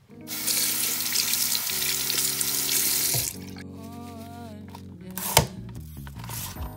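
Water running from a bathroom sink tap into the basin for about three seconds, then cutting off suddenly, over background music. A single sharp click comes about five seconds in.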